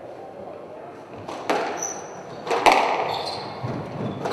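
A squash rally starting about a second in: sharp cracks of racket striking ball and ball striking the walls, four in quick pairs, ringing in the hall, with short squeaks of court shoes on the wooden floor.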